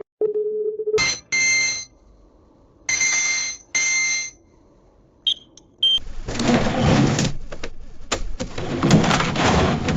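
A run of electronic sound effects. A steady low tone cuts off about a second in, then two pairs of buzzy, alarm-like beeps sound, then two short high blips. From about six seconds in comes a dense clattering of many quick clicks.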